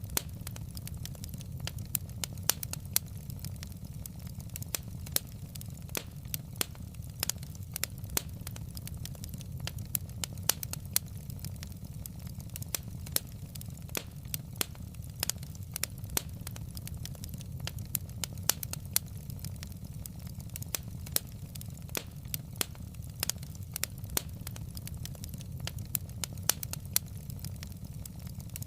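Wood fire crackling in a fireplace: burning logs popping and snapping in sharp, irregular clicks over a steady low rumble of the flames.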